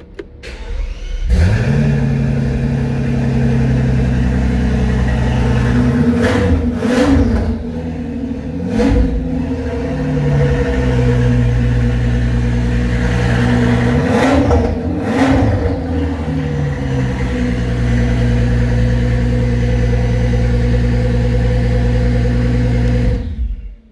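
Rebuilt 2010 Bentley Continental GT Supersports twin-turbo W12 engine starting after a short crank, then idling steadily and a little loud. It is revved in a few short blips, settles back to idle, and is switched off suddenly near the end.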